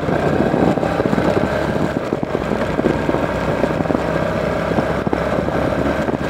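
A 125 cc motorcycle engine running steadily while the bike rides along a street, with road and wind noise mixed in.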